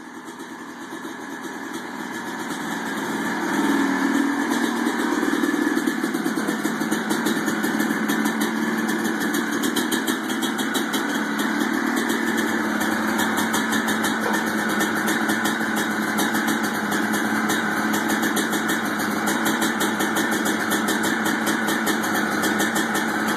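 2005 Honda CR250 two-stroke single-cylinder engine with an FMF Factory Fatty pipe running on its first start after a top-end rebuild. It builds up over the first few seconds, then runs steadily.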